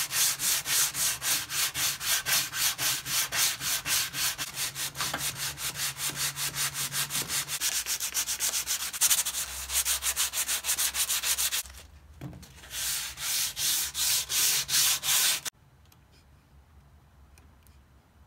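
Hickory axe handle being sanded by hand with a sanding block, in rapid, even back-and-forth strokes. There is a short pause about twelve seconds in, then more strokes; the sanding stops about three seconds before the end, leaving only a few faint ticks.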